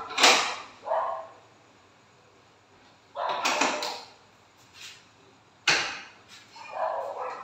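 Teak wood folding garage door panels being pushed along their overhead track: sharp wooden knocks of panels and metal hardware near the start and again about six seconds in, with a longer sliding rush in between.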